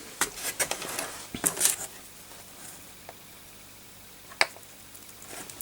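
Small clicks and taps of a through-hole capacitor being handled and set in place on a circuit board: a quick run of light clicks, then a single sharper click a few seconds later.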